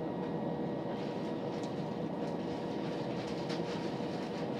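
A Southern Class 377 Electrostar electric train running at speed, heard from inside the carriage: a steady rumble of wheels on the rails with a steady hum and a few faint ticks.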